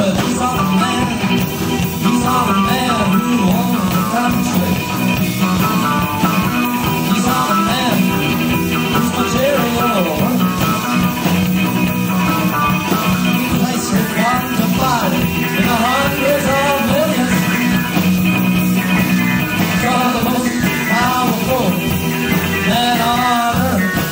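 Rock and roll band recording playing, loud and continuous.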